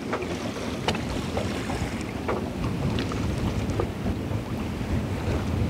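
Wind buffeting the microphone over open sea, with waves washing against the boat and a few faint sharp ticks scattered through.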